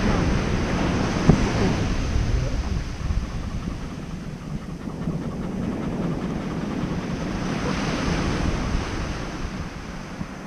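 Ocean surf breaking and washing up the beach, with wind buffeting the microphone. The wash of a wave swells up about eight seconds in.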